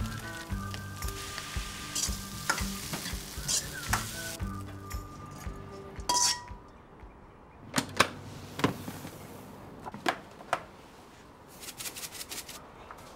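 Rice sizzling in a hot wok as it is stir-fried, for the first few seconds. Then several sharp clinks of utensils against a bowl as the rice is scooped out, and near the end a quick run of light ticks as sugar is sprinkled over rice in a glass bowl.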